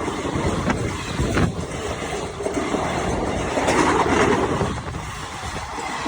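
A train running on the rails: a steady rumble with a few sharp clicks in the first couple of seconds, growing louder around the middle and easing off near the end.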